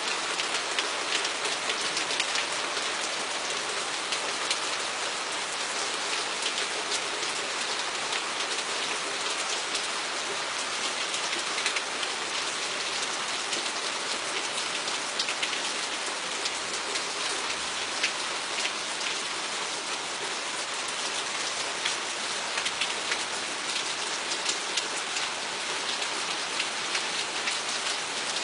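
Steady thunderstorm rain falling, with many sharp individual drop hits ticking through the even hiss.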